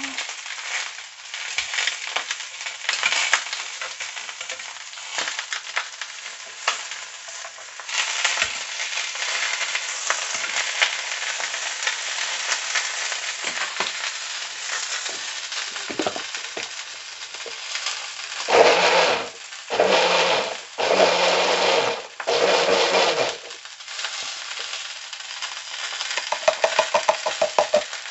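Food frying in hot oil in a pan: a steady sizzle with scattered clicks and scrapes of a cooking utensil. About two-thirds of the way through come four short, louder bursts of noise, and near the end a quick run of ticks.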